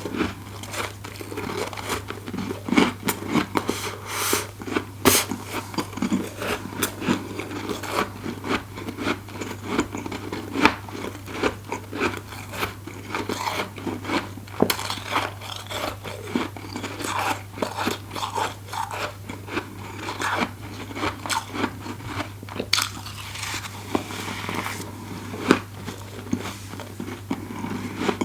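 Close-up crunching and chewing of deep-freezer frost, the fluffy frost grown with a humidifier: dense, irregular crisp crunches throughout, over a steady low hum.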